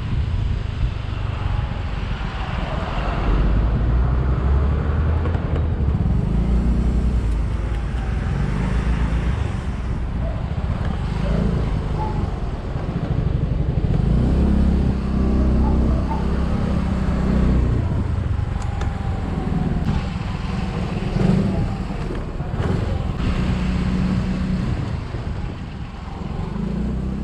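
Yamaha Mio Gravis scooter's 125 cc single-cylinder engine running on the move, its note rising and falling with the throttle, under steady road noise heard through a helmet-mounted microphone.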